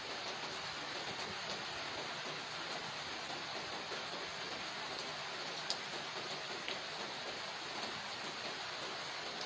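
Steady rain falling on wet paving and leaves, an even hiss dotted with small drip ticks, and one sharper drop about six seconds in.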